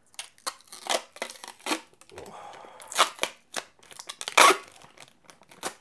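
Protective plastic film being peeled off a clear plastic drive enclosure: irregular crinkling and crackling rips, the loudest about four and a half seconds in.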